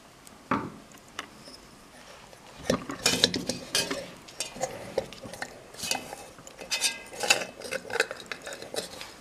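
Metal lamp shade and its fittings being handled: a knock about half a second in, then from about three seconds on a string of irregular clinks, knocks and scrapes of metal parts against the shade.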